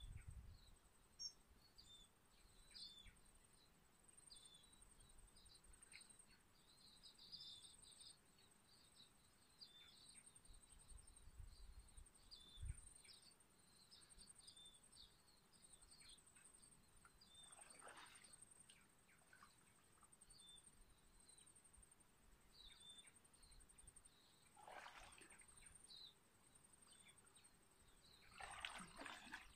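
Near silence, with faint scattered bird chirps over a thin, steady high trill. Three soft swishes of a kayak paddle in the water come a little past halfway, later on, and near the end.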